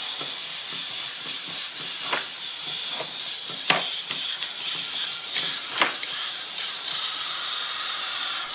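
Steady hissing noise with a few sharp crackles scattered through it.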